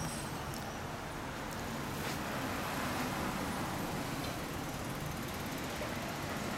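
Steady road traffic noise: a continuous hum of vehicles with no sudden events.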